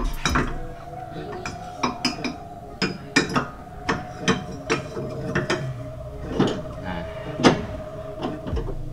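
Irregular metallic clicks and clinks of a wrench working the nut of a car's front stabilizer link, metal tool knocking against the suspension parts.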